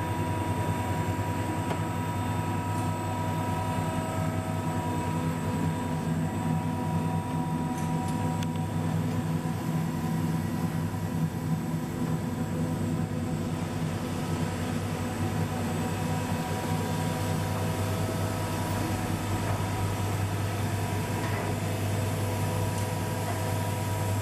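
Pellet snack extrusion line running: a steady machine drone from the extruder and shaping-roller motors, with a strong low hum and several steady tones above it.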